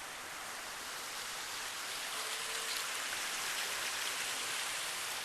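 Water falling and splashing steadily over the boulders of a landscaped waterfall, an even rushing hiss that grows slightly louder about two seconds in.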